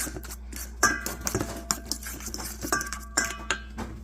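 A utensil stirring a mustard, onion and poppy seed sauce in a bowl: irregular clinks and scrapes against the bowl, several of them ringing briefly.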